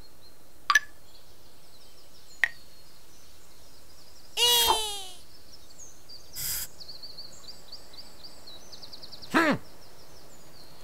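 Cartoon soundtrack of sound effects and wordless character sounds over a faint background of high chirping: a few short clicks, a loud voice-like sound falling in pitch near the middle, a brief swish, and another falling sound near the end as the rabbit strains at and kicks his stuck sledge.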